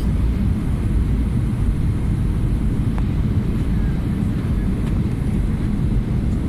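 Jet airliner cabin noise on landing approach: a steady low rumble of the engines and rushing airflow, heard from a window seat beside the engine.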